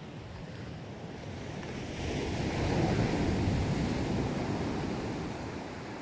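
Surf breaking on the shore: the wash of the sea swells into one big wave about two seconds in, then dies away near the end.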